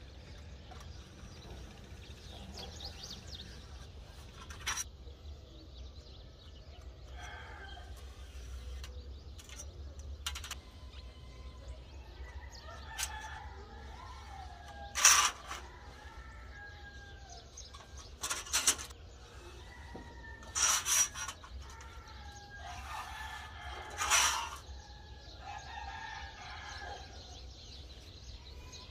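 A rooster crowing, with a handful of sharp knocks scattered through; the loudest knocks come about halfway and near the end.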